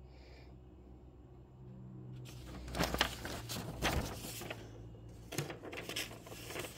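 Paper rustling and crinkling as a folded paper map is handled, in bursts starting about two seconds in, loudest around the third and fourth seconds, over a faint steady low hum.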